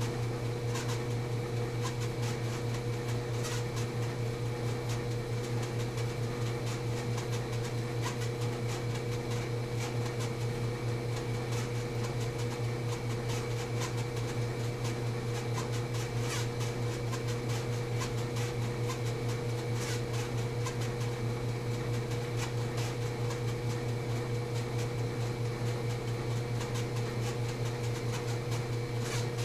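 A steady mechanical hum with a low drone, unchanging throughout, with faint scattered clicks.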